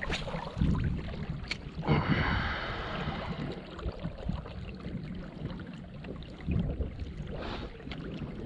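Water moving against a kayak hull, with a steady low rumble of wind on the microphone and a few brief knocks and splashes; a louder rush of water about two seconds in.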